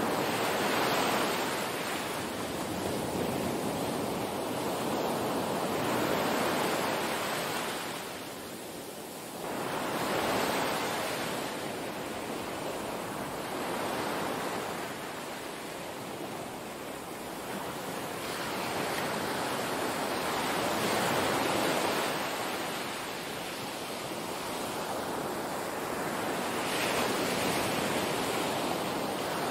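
Small waves washing onto a sandy beach, each surge swelling and fading about every five seconds.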